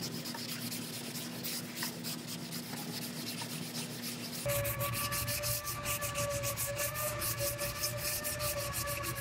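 Hand sanding body filler on a car's quarter panel with sandpaper: quick back-and-forth rasping strokes, several a second, which get faster about halfway through. A steady whining hum starts at that point and runs under the strokes.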